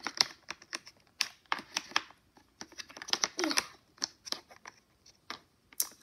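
Small plastic toy figures and a plastic playset clicking and tapping irregularly as they are handled, with many quick, light clicks.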